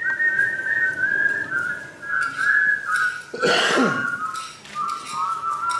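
A person whistling a tune: a wavering pitch that steps gradually downward from note to note. It is cut across about three and a half seconds in by a short, harsh vocal noise.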